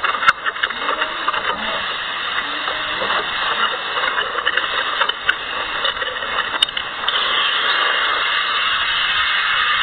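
Cyclone-force wind and driving rain: a steady, thin-sounding hiss with scattered clicks, a little louder and steadier from about seven seconds in.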